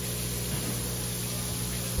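Running water pouring steadily from a tap onto a large olive flounder on a plastic cutting board, splashing as it rinses the fish being bled, with a steady low hum underneath.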